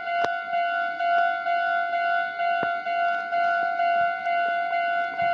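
Japanese railway level-crossing warning bell ringing: a repeating electronic ding with a steady pitch that keeps pulsing through, with a few sharp clicks over it.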